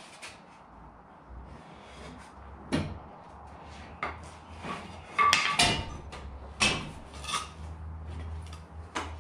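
Jet ski hull being shoved and slid along a wooden carrier's boards: scattered knocks, bumps and scrapes, loudest about five and a half seconds in. A low steady hum runs beneath.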